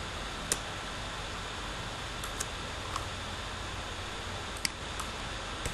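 Computer mouse clicking several times at irregular intervals, the sharpest click about half a second in, over a steady microphone hiss and low room hum.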